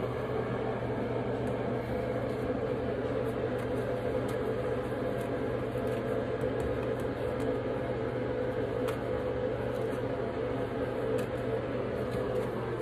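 Steady mechanical ventilation hum, with fixed low tones and no change in level. Faint light rustles and ticks from toilet paper being pulled off the roll and torn.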